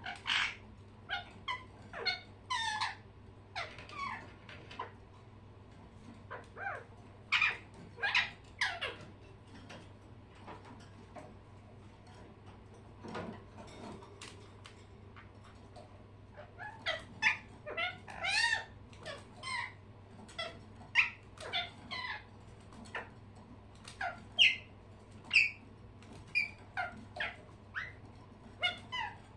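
Pet birds chirping and squeaking in short, irregular calls, busier at the start and again after a lull in the middle.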